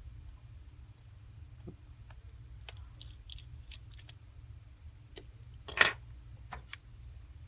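Small scattered metallic clicks and ticks of a precision screwdriver working the two bottom pentalobe screws of an iPhone 5C, with one louder clack about six seconds in.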